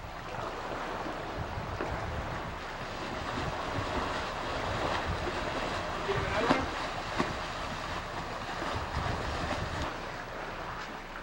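Wind buffeting the microphone over the wash of open-sea waves, with two short knocks about six and a half and seven seconds in.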